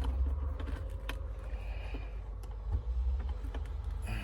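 Scattered light clicks and rattles of a sun visor and its wiring being handled, over a low steady rumble.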